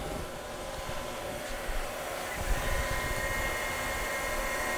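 Steady mechanical hum of a powered-up 2003 Haas SL-10 CNC slant-bed lathe, with a few steady tones running through it; a higher tone joins about halfway through.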